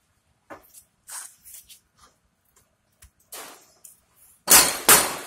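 Light metal clinks of the cart corral's tube fittings and snap pin being handled, then two loud knocks about half a second apart near the end: a rubber mallet tapping the snap pin down into the leg pocket.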